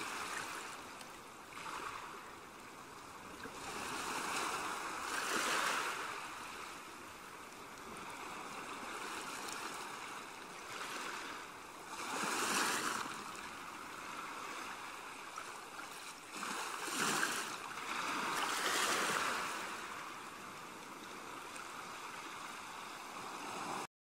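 Ocean surf on a beach: a steady hiss of waves that swells and fades every six or seven seconds as each wave breaks and washes up the sand. It cuts off suddenly near the end.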